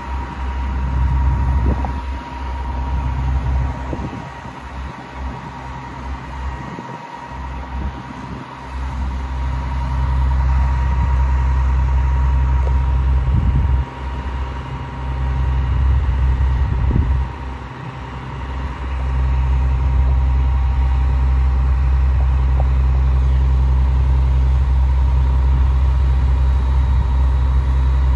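Western Star crane truck's Cummins ISM turbo-diesel engine running, a low rumble with a thin steady whine over it. The rumble dips and swells a few times, then holds steady for the last third.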